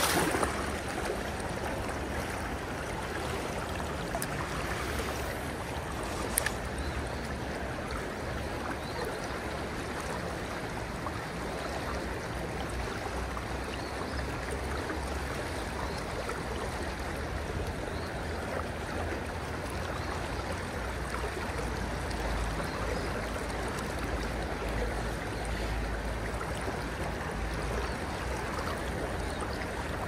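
Creek water rushing steadily over a shallow riffle, with a loud splash close by right at the start and a single sharp click about six seconds in.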